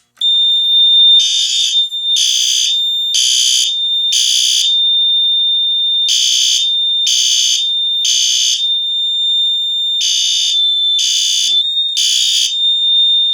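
Notifier NFW-50C fire alarm system in alarm after a pull station is pulled. The panel's separate piezo gives a steady, ear-splittingly loud high tone. About a second and a half in, a System Sensor L-Series P2RLA horn strobe starts sounding in temporal code 3: three blasts, then a pause, repeating.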